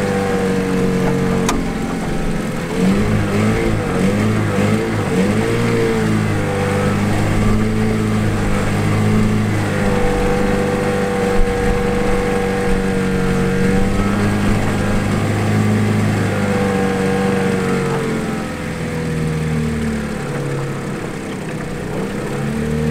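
Small gasoline outboard motor pushing an aluminum fishing boat along at steady speed. The engine pitch wavers a few seconds in, then holds steady, easing off a little near the end.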